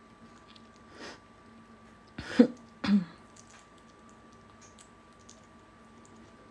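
Two short cough-like, throat-clearing sounds, about two and a half and three seconds in, over a faint steady hum.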